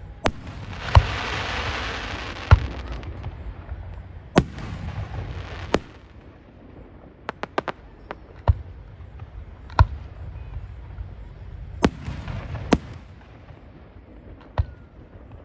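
Fireworks display: aerial shells bursting with sharp bangs every second or two. Some bursts are trailed by a few seconds of crackling hiss, and a quick run of small pops comes about halfway through.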